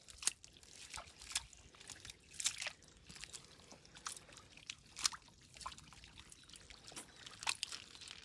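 Hands squelching in soft wet mud while working a cast net through it: irregular short wet splats and clicks, about one a second.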